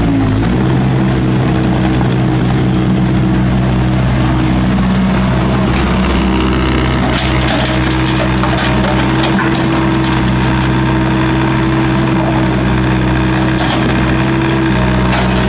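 Kobelco SK50 mini excavator's diesel engine running steadily under working load. About halfway through, a burst of clattering as broken asphalt chunks drop from the bucket into a steel dump truck bed, with one more knock near the end.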